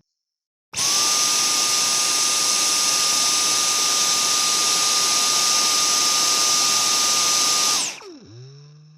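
Vacuum cleaner switched on just under a second in, running with a steady high whine and airy rush for about seven seconds, then switched off, its motor winding down in falling pitch as it fades.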